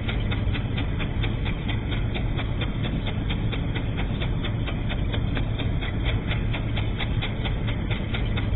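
Bell & Howell Super 8 film projector running, with a steady motor hum and an even, rhythmic clicking from its film-pulling mechanism.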